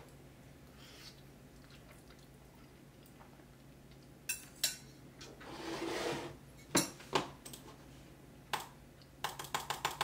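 Tableware handled at a desk: a utensil knocking against a glass bowl and a metal mug set down on the wooden desktop, a few separate sharp knocks. Near the end comes a quick run of computer mouse clicks.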